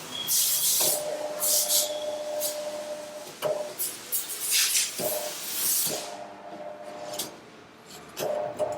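Short bursts of hissing, like spray or compressed air, four times, with a steady machine hum coming and going in between and a few clicks.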